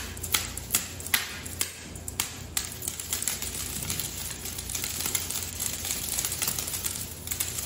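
Tinsel wand cat toy dragged and flicked across a tile floor: a string of sharp irregular taps, then a denser rustling swish with light ticks from about two and a half seconds in, stopping shortly before the end.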